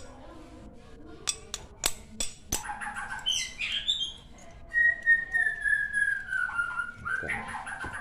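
A few sharp metal clicks as small kick-starter parts are handled, then chirping and one long whistle that slowly falls in pitch.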